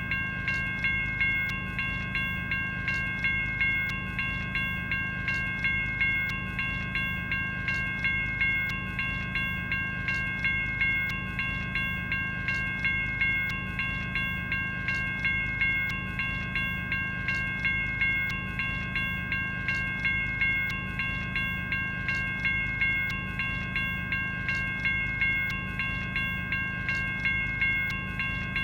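General Signals Type 1 electronic railroad crossing bell ringing continuously. It strikes in a steady, even rhythm, each ding fading before the next.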